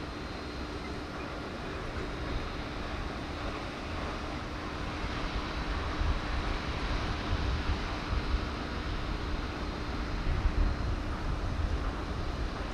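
Outdoor background noise: a steady low rumble that grows louder and gustier about halfway through, with a faint steady hum and a thin high whine under it.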